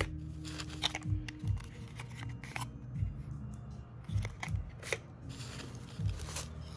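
Handling noise from unpacking: light clicks, taps and rustles of small cardboard product boxes, a cotton pouch and shredded paper filler, over quiet background music.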